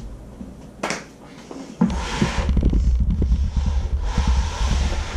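Hands sliding a pile of cardboard jigsaw puzzle pieces across a wooden tabletop: a rumbling scrape full of small clicks, starting about two seconds in after a single sharp knock.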